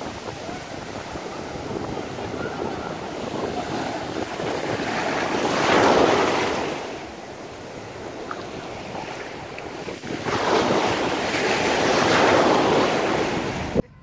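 Mediterranean surf breaking and washing up the beach: a continuous rush of water that swells into loud breakers about six seconds in and again from about ten seconds, then cuts off suddenly near the end.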